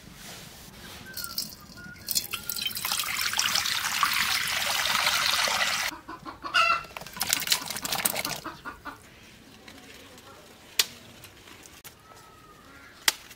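Chickens clucking, with a loud rushing hiss from about two seconds in that lasts around four seconds. A few clatters follow, then scattered clucks and single clicks.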